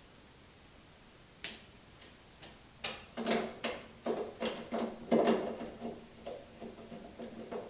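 Clicks and scraping from the reverse-light bulb socket of a car's tail light being handled and twisted into the housing: one click about a second and a half in, then a run of clicks and scraping in the middle.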